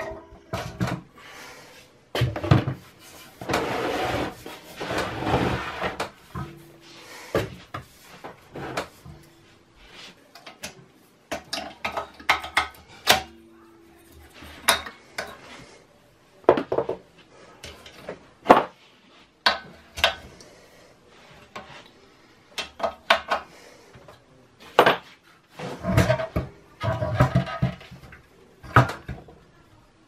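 Irregular metallic clinks and knocks of wrenches and air-compressor fittings being handled and set down while the pressure switch is taken apart, with busier stretches of handling noise around the fourth to sixth second and again near the end.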